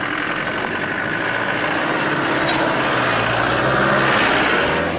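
Land Rover Discovery 300Tdi four-cylinder turbodiesel driving on a gravel track, its engine and tyre noise growing louder as it passes close by about four seconds in.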